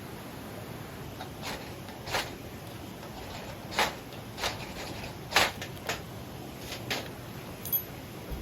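A series of short, sharp knocks and clicks at irregular intervals, about nine of them, beginning about a second and a half in, over a steady hiss.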